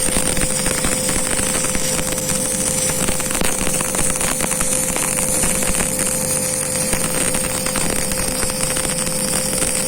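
Electric welding arc crackling and sizzling steadily over a constant hum.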